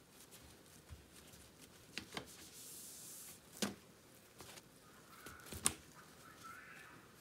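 Damp paper towels rustling as they are pressed on and peeled off slices of tofu on a metal tray, with a few sharp light clicks and taps.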